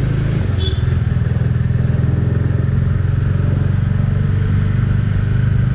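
Bajaj Dominar 400's single-cylinder engine idling steadily at an even pitch, running without the valve shim noise: its cylinder head assembly has just been replaced.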